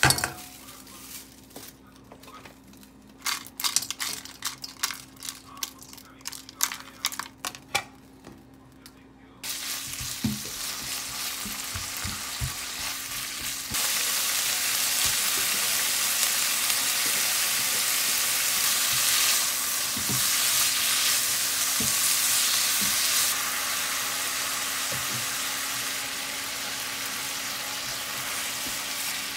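Scattered light clicks and taps, then about ten seconds in food goes into a hot pan and starts sizzling steadily, getting louder a few seconds later and easing off somewhat near the end, with a few soft knocks of a utensil in the pan.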